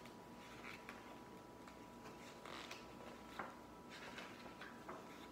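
Faint rustling and light taps of paper and card as a picture book and a paper sailboat prop on a stick are handled.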